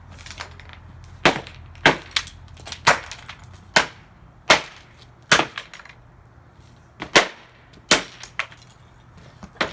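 Hammer blows on the plastic and metal remains of an alarm clock radio lying on plywood: about a dozen sharp cracks, mostly under a second apart, with a pause of nearly two seconds in the middle.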